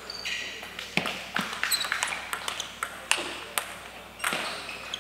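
Table tennis rally: the ball clicking sharply and quickly off the bats and the table, from about a second in until about three and a half seconds, with a few more ball clicks near the end.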